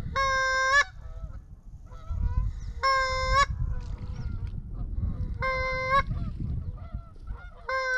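A honking waterfowl call: four long, flat honks, each under a second, coming about every two and a half seconds over a low rumble.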